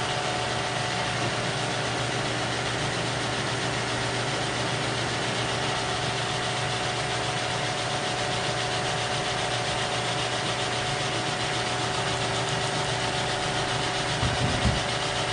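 Kearney & Trecker 2HL horizontal milling machine running on a test run with its feed distribution unit freshly reinstalled: a steady motor hum and gear whir with a few held tones over a bright hiss. A few low thumps come near the end.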